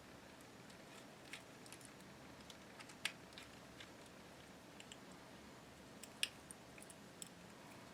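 Faint, scattered small clicks and taps of a screwdriver and the small screws of a rifle bolt cover as it is unscrewed and taken off. The two loudest clicks come about three and six seconds in.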